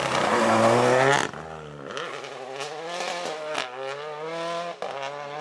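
Renault Clio R3T rally car's turbocharged four-cylinder engine under hard throttle close by. After a sudden cut about a second in it is quieter, revving up and down through gear changes, with a couple of sharp cracks.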